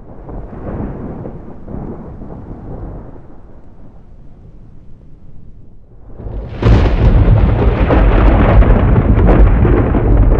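Thunder rumbling during a lightning storm. About six and a half seconds in, a sudden, much louder clap of thunder breaks and keeps rolling.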